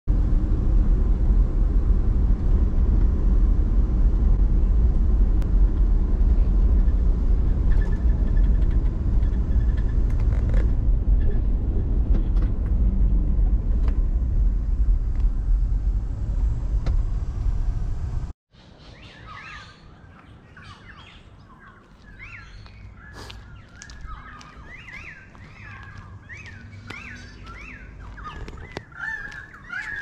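Steady low rumble of road and engine noise heard inside a moving car's cabin, which cuts off suddenly past the halfway point. Quieter outdoor sound follows, with birds calling in many short, repeated chirps.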